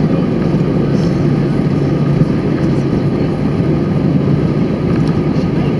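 Steady cabin noise of an Airbus A320-214, the CFM56-5B turbofan engines and rushing air, heard from inside the passenger cabin as a loud, even rumble.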